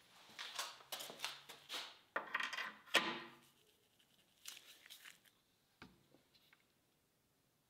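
Faint handling noises of metal parts on a lathe tailstock as the live center is fitted: scraping, rustling and light clicks for about three seconds, the sharpest click near the three-second mark, then a few light ticks.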